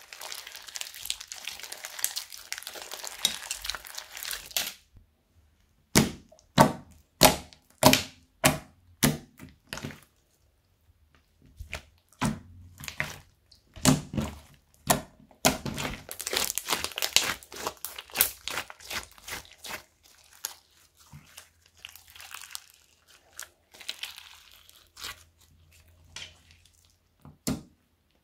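Hands kneading and squeezing bead-filled slime. The first few seconds are a continuous wet, crackling squish. After a short pause comes a run of sharp pops and clicks, about two a second, as the slime is pressed and stretched, then a softer crackle near the end.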